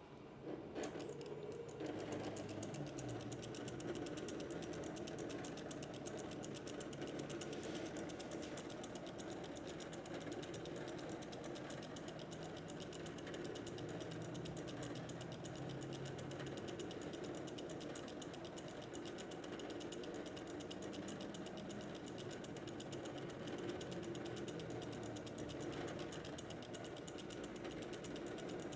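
Homemade punch-card computer mechanism running a bubble-sort program: a steady, rapid mechanical clicking over a low hum, with no pause.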